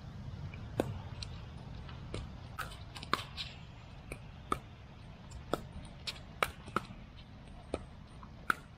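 Pickleball rally: sharp, hollow pocks of paddles striking the plastic ball, with the ball's bounces off the court, about a dozen strikes spaced roughly half a second to a second apart.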